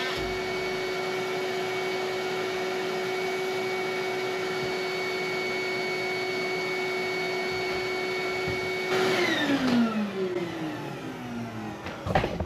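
Oscillating multi-tool running at a steady high pitch as it cuts through the wall. About nine seconds in it is switched off and winds down, its pitch falling. A sharp knock comes near the end.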